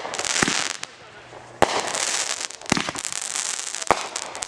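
Consumer fireworks going off: a hissing, crackling spray with four sharp bangs about a second apart.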